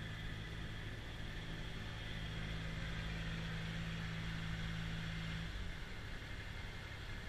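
Kubota BX2660 compact tractor's three-cylinder diesel engine running steadily with its front-mounted snowblower at work, heard at a distance. The engine's steady hum changes pitch about five and a half seconds in.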